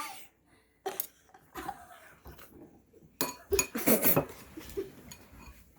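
A spoon clinking and scraping against a bowl in a few separate taps, with a louder clatter of them about three seconds in.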